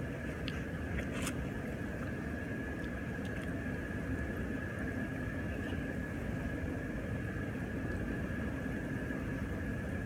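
Steady rush and hum of a jacuzzi's waterfall and pump, with a faint steady high tone running through it. Two faint clicks come in the first second and a half.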